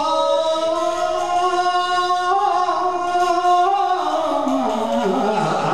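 Elderly man singing a Japanese folk song (min'yō) into a microphone: one long held note that wavers slightly, then slides down in pitch near the end.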